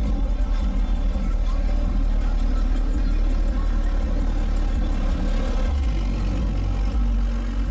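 Car engine running with a steady, heavy low rumble.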